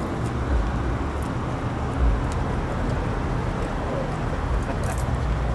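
Steady street traffic noise with a low rumble of passing cars and engines.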